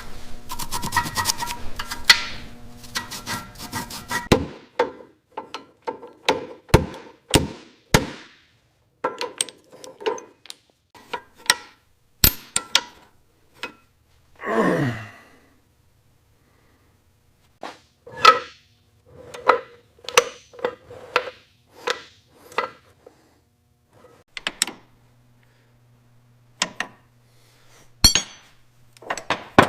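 Hand-tool work on metal motorcycle parts: a string of separate knocks, taps and clanks, some ringing briefly. About halfway through comes a short sound that falls steadily in pitch.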